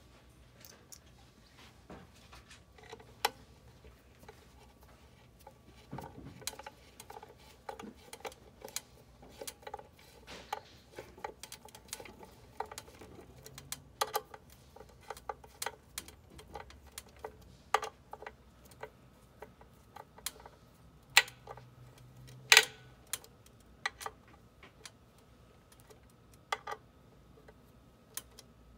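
Irregular small metallic clicks and ticks of a 3 mm hex key turning in small bolts on an e-bike frame as they are threaded in and tightened, with a couple of sharper clicks about two-thirds of the way through.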